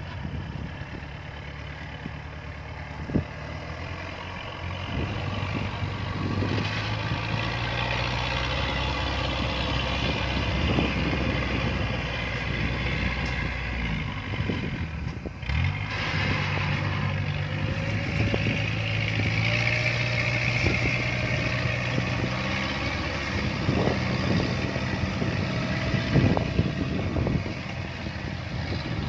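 Yanmar AW82V combine harvester's diesel engine running, its note rising and falling several times as it works under load with a heavy pile of rice sacks, with a few sharp knocks along the way.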